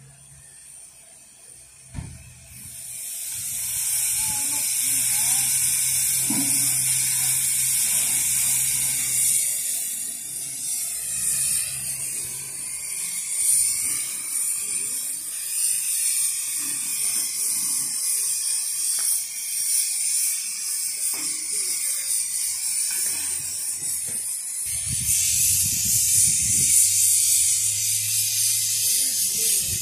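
Narrow-gauge steam locomotive venting steam: a loud, steady hiss that starts suddenly about two and a half seconds in and grows stronger near the end, over a low steady hum.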